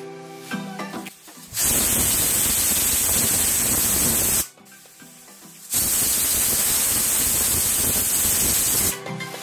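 Prestige Deluxe pressure cooker venting steam past its weight valve: two loud hissing whistles of about three seconds each, a short pause between them, the sign that the cooker is at full pressure.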